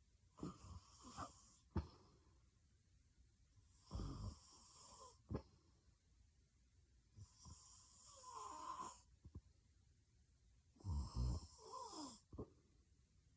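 A woman snoring heavily in her sleep: about four rough snores a few seconds apart, two of them carrying a wavering whistle, with a couple of short clicks in between.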